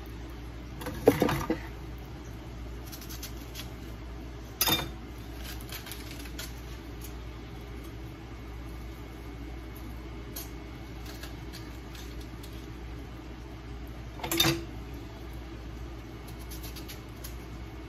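Three brief clatters of kitchen utensils and cookware: one about a second in (the loudest), one near five seconds and one near fourteen seconds, over a steady low hum.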